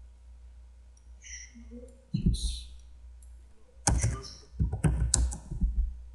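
Computer keyboard keystrokes and mouse clicks: a single knock about two seconds in, then a quick run of clicks and key presses around the four-to-six-second mark.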